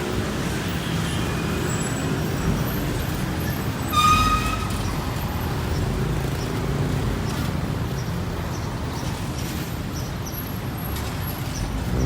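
Street traffic: the engines of passing vehicles running steadily, with one short vehicle horn toot about four seconds in.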